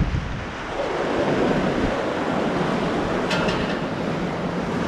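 Wind buffeting the camera microphone over the steady wash of surf breaking against the pier below.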